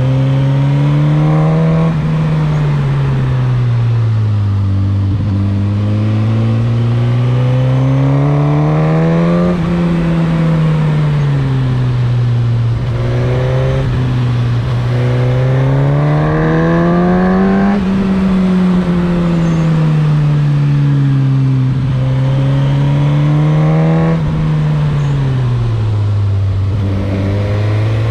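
Suzuki GSX-S1000's inline-four engine and exhaust heard from the saddle while riding through bends. The engine pulls up and backs off several times, its pitch rising and falling in long sweeps as the throttle opens and closes.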